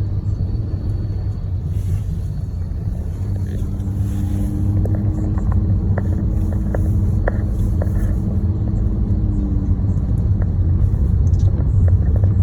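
Car driving on a snow-covered, unplowed road, heard from inside the cabin: a steady low rumble of engine and tyres, with a few faint clicks around the middle.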